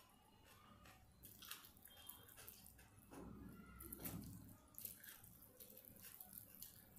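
Fingers squishing and mixing curry-soaked rice on a plate by hand: faint wet squelches and small clicks, a little louder about three to four seconds in.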